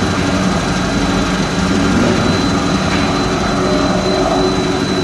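Fried snack production line machinery running: a loud, even mechanical din with a low hum and a steady high whine.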